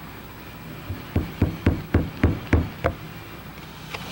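Soft-faced mallet knocking on the cast housing of an air rock drill to work its parts loose: about seven sharp strikes in quick succession, roughly three a second, between about one and three seconds in.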